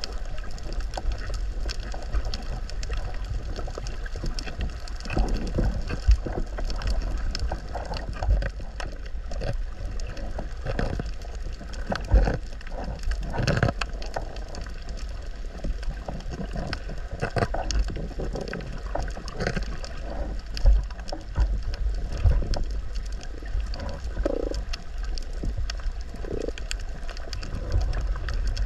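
Underwater sound picked up by a camera below the surface on a coral reef: a steady low rumble of moving water with scattered clicks and knocks, and a couple of short gurgles near the end.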